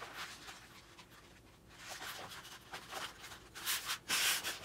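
Poster board strips rustling and scraping as they are handled and pressed onto the bow, with two louder rustles near the end.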